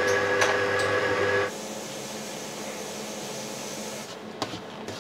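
An electric kitchen appliance's motor running with a steady whine, switched off suddenly about a second and a half in. A couple of light knocks follow near the end.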